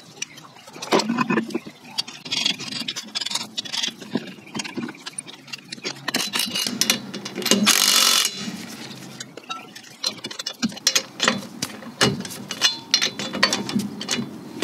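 Steel lug nuts clinking and clanking as they are handled and threaded onto the wheel studs, with a cordless drill-driver and socket running briefly about eight seconds in to spin a nut on.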